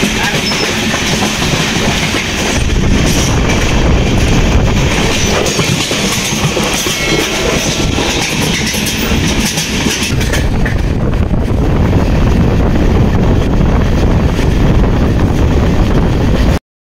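Passenger train running at speed, heard from inside the coach near the door: steady wheel-on-rail running noise. The hiss lessens somewhat about ten seconds in.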